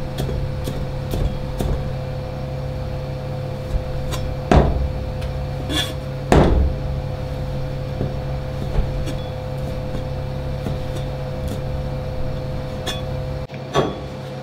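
Chinese cleaver chopping and tapping on a cutting board as pickled greens and then meat are cut, with scattered light knocks and two sharper ones about four and a half and six and a half seconds in. Under it runs a steady low machine hum that stops shortly before the end.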